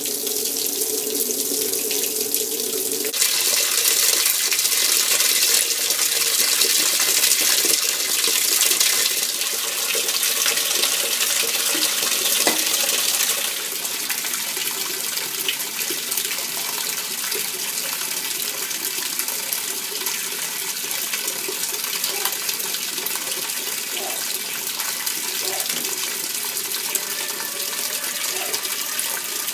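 Kenmore top-load washing machine filling: water pouring steadily into the empty tub with a hissing splash. The splash gets louder about three seconds in and eases off somewhat at around thirteen seconds.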